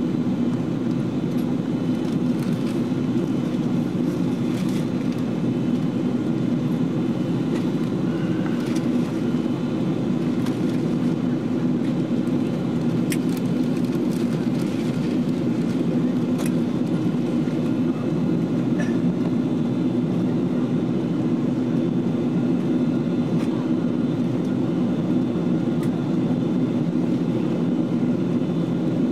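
Cabin noise inside a Boeing 777-200 airliner in flight: the steady, low drone of the engines and the airflow past the fuselage, with a constant hum and a few faint clicks.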